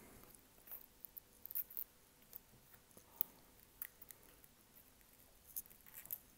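Faint, irregular small clicks and crackles, the sharpest about three seconds in: a pry tool lifting the heat-softened, cracked back glass of an iPhone 13, the broken glass snapping off the adhesive.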